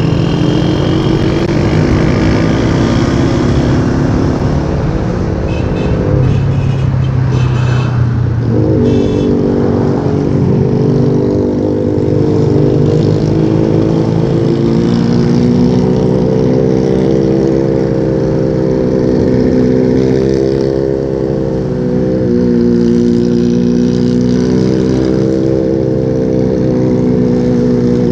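Small single-cylinder motorcycle engine running under way, its pitch rising and falling with the throttle. It drops lower about six seconds in and climbs sharply again near nine seconds, as at a gear change. A steady low wind rumble on the microphone runs beneath it.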